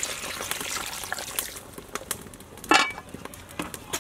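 Water poured into an aluminium cooking pot of chopped tomato and green onion, then the pot's metal lid set on with a single short clank about three quarters of the way through.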